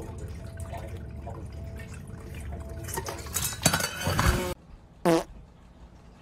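Electric pet water fountain running, its pump humming low under trickling water. A little after three seconds come splashes and knocks as a cat paws at the spout, and the hum stops abruptly about four and a half seconds in.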